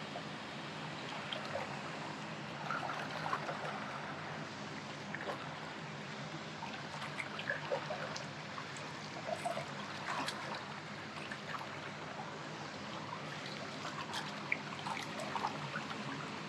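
River water trickling and flowing steadily, with scattered small clicks and taps throughout.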